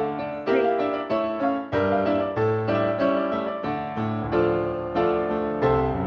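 Piano playing ballet class accompaniment: bass notes and chords struck on a steady, moderate beat.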